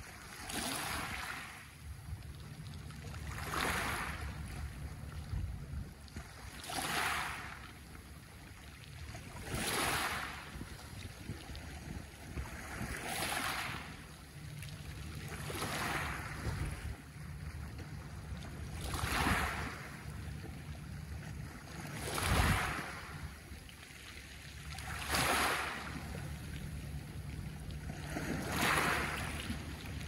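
Small sea waves washing up onto a pebble beach, each breaking in a short hissing rush over the stones and then drawing back, about one every three seconds.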